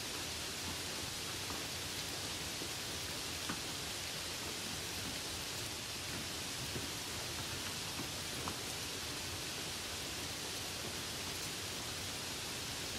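Light rain: a steady, even hiss with a few faint drop ticks now and then.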